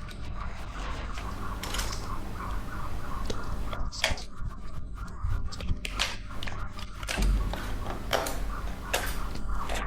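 Hard ostrich eggshell being cracked and picked apart by hand: irregular sharp cracks, crunches and scrapes, several of them louder snaps, over a steady low hum.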